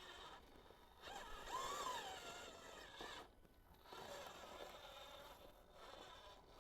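RC crawler's electric motor and gears whining as the truck drives, rising in pitch then falling back about a second in, with a fainter whine later.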